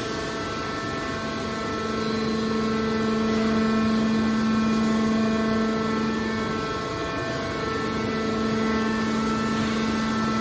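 Hydraulic scrap car baler running: a steady hum from its motor and hydraulic pump, with a brief break in the hum about two-thirds of the way through.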